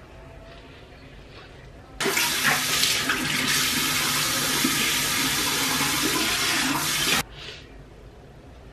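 Bathroom sink tap running hard, water splashing into the basin while the face is rinsed. It comes on suddenly about two seconds in and is shut off suddenly about five seconds later.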